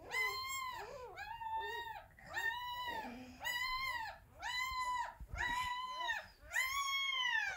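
Newborn puppy crying: a string of high, pitched squealing whines, about one a second, each rising and then falling.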